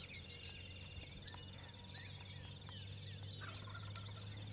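Faint wild birds calling: many short chirps and whistled notes, over a steady high-pitched trill.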